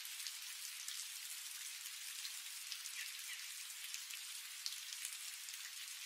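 Steady rain falling: a quiet, even hiss of many drops, with scattered small drop ticks.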